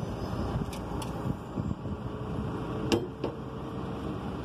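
Steady low background rumble with a few sharp clicks, the loudest about three seconds in.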